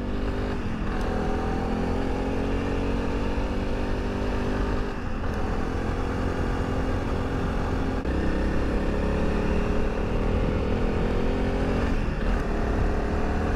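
Honda CRF300 Rally's single-cylinder engine running under way on a dirt road, with wind rumble on the microphone. The engine note climbs slowly and dips briefly about four times.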